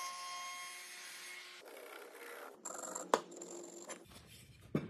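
A power saw's motor running with a steady whine, which dies away about a second and a half in. Then scraping and a few sharp knocks of wood being handled, the loudest about three seconds in.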